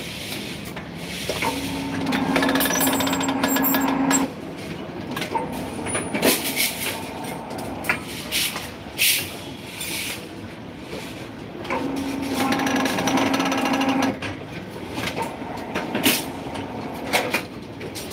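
Electric rebar bending machine running through two bending cycles, its motor and gear drive humming steadily for about two and a half seconds each time as the turntable bends a bundle of steel bars into stirrups. Between the cycles, sharp clanks of steel rebar being knocked and repositioned on the machine.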